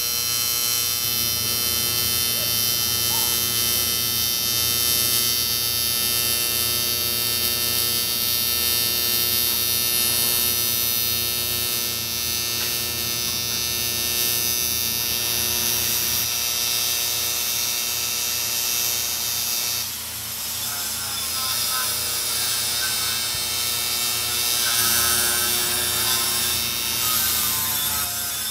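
Steady machine hum with many evenly spaced overtones, like a running motor. About two-thirds of the way through the level dips briefly and a wavering higher tone joins it.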